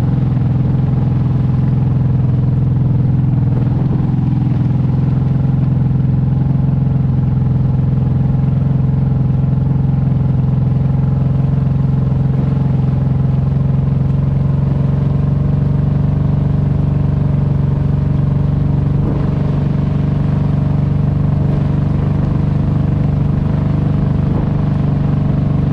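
Kawasaki Brute Force 750 ATV's V-twin engine running steadily under load as it tows a small boat on a rope through shallow water.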